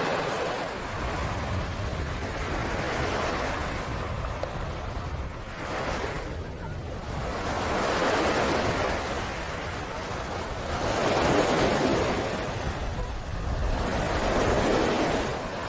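Ocean surf washing onto the beach, the rush of breaking waves swelling and fading every few seconds, with wind rumbling on the microphone.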